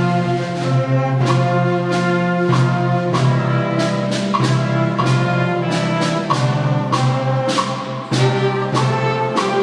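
A school band playing, brass instruments carrying sustained notes over a steady percussion beat.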